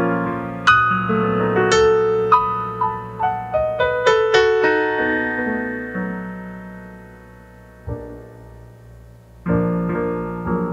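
Solo piano played on a Roland digital piano: a slow melody over held chords that thins out and softens in the middle, then a full chord struck again near the end.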